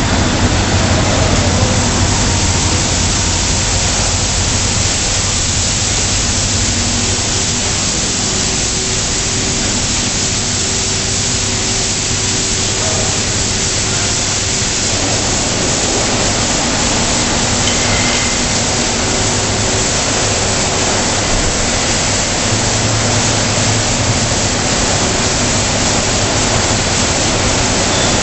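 Automatic tunnel car wash at work on a van: a steady hiss of water spray and spinning brushes, with a faint machine hum underneath.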